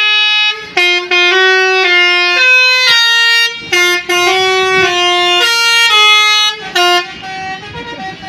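A bus's basuri telolet multi-tone air horn playing a loud tune of held notes that step between pitches, with short breaks between phrases. It stops about seven seconds in, leaving quieter traffic noise.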